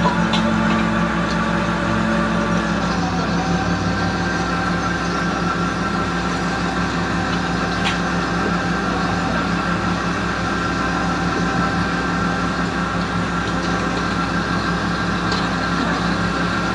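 Steady mechanical drone of a fishing boat's engine and deck line hauler running. Its tones shift slightly about three seconds in, and a few faint clicks come over it.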